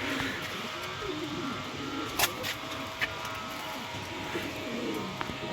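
Pigeons cooing softly, low and wavering, with a sharp click about two seconds in and a smaller one about a second later.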